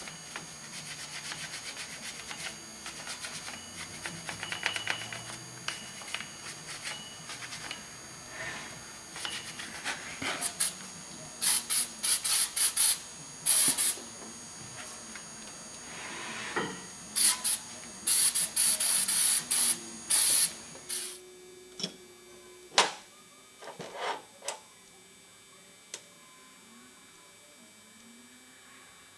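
Aerosol spray can fired at a rusty truck rear wheel hub in a string of short blasts, with a longer spray near the middle; before it, light metal scraping and tool handling. Near the end, a few sharp metallic clicks as brake caliper parts are handled.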